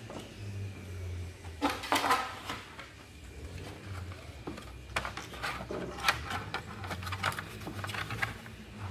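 Carbon-fibre tank cover and plastic fuel tank being handled, clicking, knocking and scraping together as the cover is tried in place. A cluster of sharp clicks comes about two seconds in, and more scattered clicks and knocks follow in the second half.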